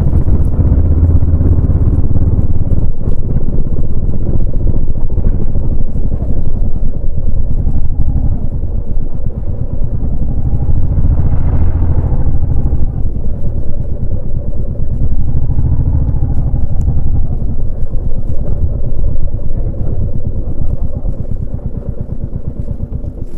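Royal Enfield Bullet 350's single-cylinder engine and exhaust thumping steadily while being ridden, getting quieter over the last few seconds.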